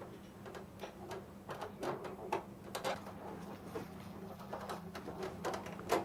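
Light, irregular wooden taps and clicks as parts of a wooden mikoshi shrine are fitted together during assembly, over a faint steady hum.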